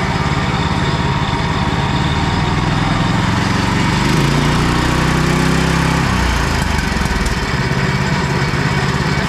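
Small gas engine on a homemade boat motor running on its newly fitted carburetor. The throttle is opened about three and a half seconds in, the pitch climbs, and it drops suddenly back to idle just after six seconds.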